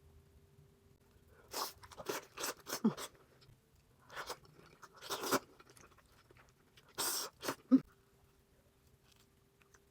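Close-miked eating sounds: wet chewing and biting into a soft, cheese-sauced boiled onion, in four short clusters separated by quiet pauses.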